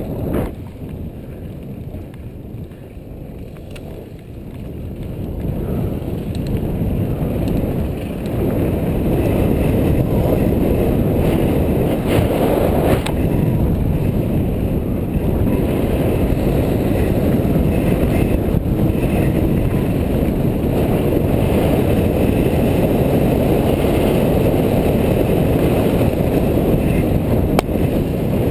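Mountain bike riding down a dirt and gravel fire road, heard from a camera on the bike or rider: an even noise of tyres on dirt mixed with wind on the microphone. It grows louder over the first several seconds, then holds steady.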